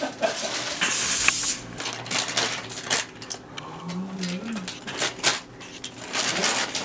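Bagged fries being tipped out of a plastic bag, clattering in a run of small clicks onto aluminium foil lining a skillet, with the bag and foil crinkling.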